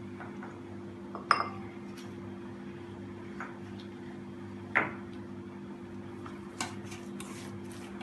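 A spoon clinking against a dish as spice powders and salt are added: two sharp clinks, lighter taps between, and a run of quick small taps near the end. A steady low hum runs underneath.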